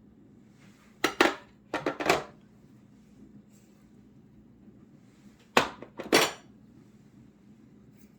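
Kitchenware clattering: four short, sharp clinks and knocks of dishes or utensils, two close together about a second in and two more about five and a half seconds in.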